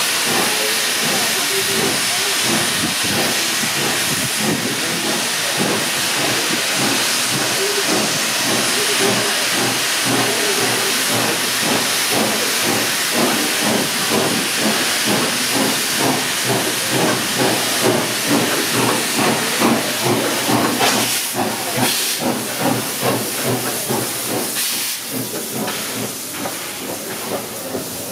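Two steam locomotives, NSW C36-class 3642 and C30-class 3016, starting away side by side. Steam hisses constantly under a run of exhaust chuffs that come quicker as they gather speed. Near the end the sound drops away as the engine passes and its carriages follow.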